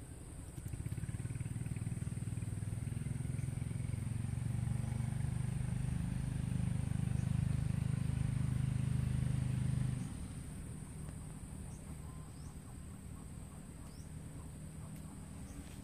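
A motor engine running with a low hum, growing louder over about ten seconds and then dropping away suddenly. A steady high insect drone runs underneath.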